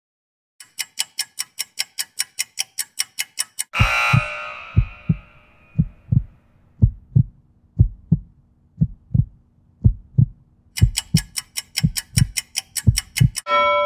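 Interval-timer sound effects. Fast countdown ticks, about five a second, run out the last seconds of the work interval and end in a loud ringing hit. Through the rest period comes a heartbeat of paired thumps about once a second, with the fast ticks returning in its last seconds and a ringing bell tone at the end marking the start of the next work interval.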